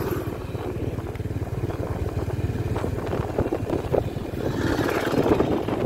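Motorbike running steadily while riding along a road, heard as a dense low rumble.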